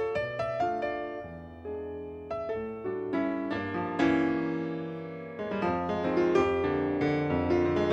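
Jazz piano playing a slow, romantic piece, chords under a melody with sustained low notes, and a firm chord struck about four seconds in.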